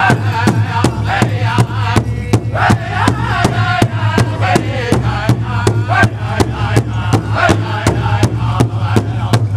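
Powwow drum group singing an intertribal song together while several men strike a large hide-topped powwow drum in unison, a steady beat of about three strokes a second under wavering voices.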